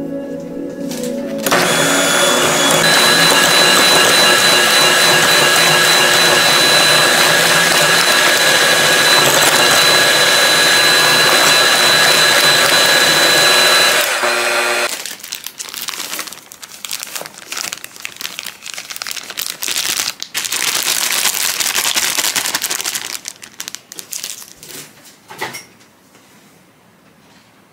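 Electric hand mixer beating a stiff butter, sugar and egg batter in a glass bowl. The motor runs steadily with a constant whine from about a second and a half in until about halfway. After that come shorter, uneven bursts of beating until it goes quiet near the end.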